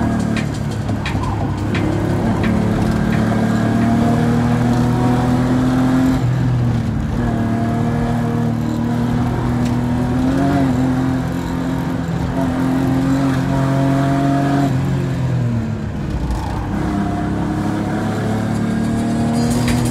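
BMW E39 530i's inline-six engine heard from inside the cabin, running at fairly steady revs under load, with the revs dropping and picking up again around six seconds in and again near fifteen seconds.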